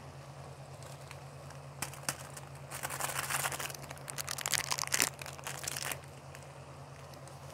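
A plastic Maggi masala sachet crinkling and being torn open, in crackly bursts from about two seconds in to about six seconds in.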